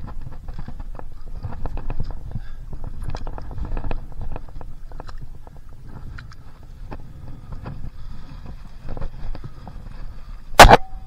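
Irregular knocks and clatter on a stand-up paddleboard, over a steady low rumble. One sharp, loud knock with a short ring comes near the end.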